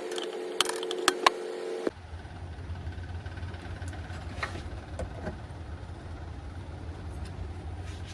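Amplifier output through a speaker: steady tones broken by several sharp crackling pops. About two seconds in it changes abruptly to a steady low hum with faint hiss, the kind of crackle and noise that marks a faulty amplifier.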